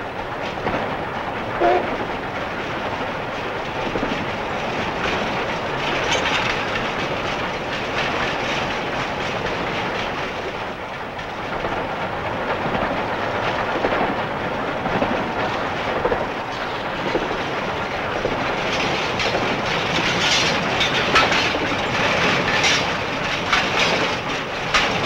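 Steam locomotive running at speed, heard from inside the cab: a steady, dense mechanical running noise with the rattle of the moving train, growing a little busier and louder in the last few seconds.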